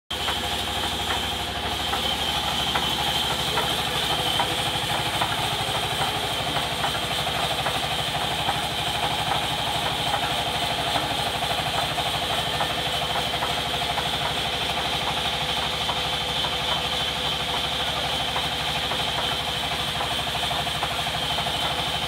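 Vertical band sawmill running steadily, its blade cutting lengthwise through a large wooden slab, with a constant high whine over a low mechanical drone.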